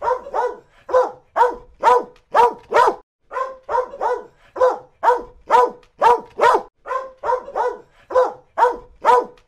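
A dog barking over and over in a steady series, about two barks a second.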